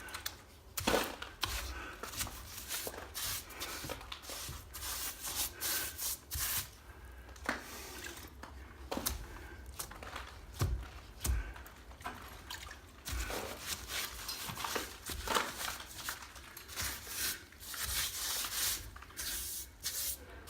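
Water being worked onto the opened-up lath and plaster patch to wet it down: irregular wet dabbing, rubbing and dripping with scattered small knocks.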